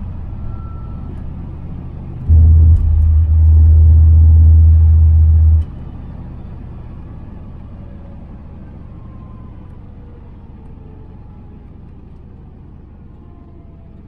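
Turbocharged Fox-body Mustang's 5.0 V8 heard from inside the cabin while driving. About two seconds in, a loud low rumble starts suddenly and cuts off sharply some three seconds later. Then the engine sound slowly falls in pitch and fades as the car coasts.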